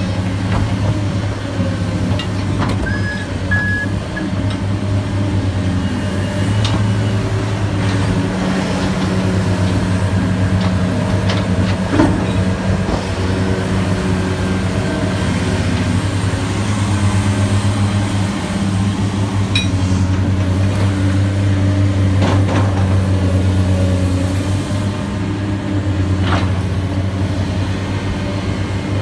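Heavy diesel machinery running steadily, with a truck's reversing beeper sounding briefly about three seconds in and a few sharp knocks, the loudest about twelve seconds in.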